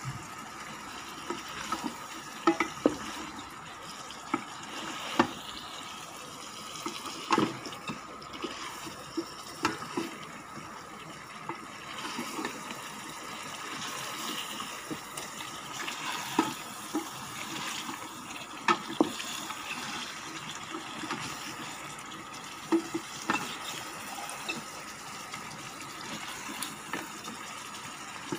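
A wooden spatula stirs chunks of beef in a metal pot, scraping and knocking against the pot at irregular moments, over a steady sizzling hiss from the cooking food.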